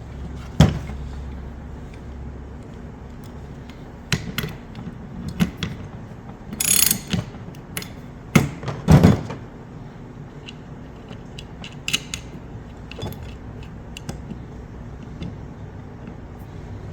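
Irregular metallic clicks and clanks of a wrench working the nuts on a cable cutter's blade assembly shaft as they are tightened, with a few louder knocks of tool on metal.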